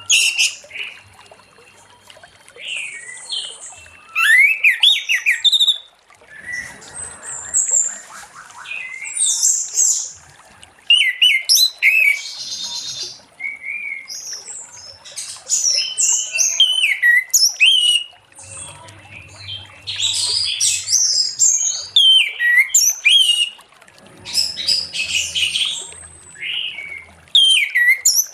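Orange-headed thrush in full song: a long, varied run of loud whistled phrases, rising and falling notes and quick twitters, in bursts with short pauses between them.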